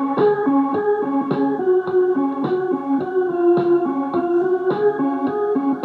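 Music streamed from a phone over Bluetooth and played through a PALCO multimedia speaker, a 4-inch driver in a wooden cabinet: a melody of held, keyboard-like notes over a steady beat.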